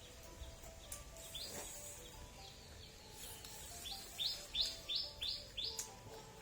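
A small bird chirping: a few separate short, high chirps, then a quick run of about six in the second half.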